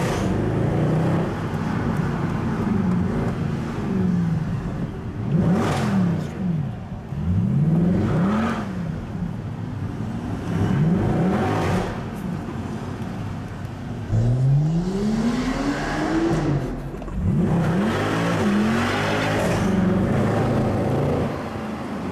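Performance car's engine heard from inside the cabin, revving up and dropping back again and again under hard acceleration, with a few short sharp cracks in between.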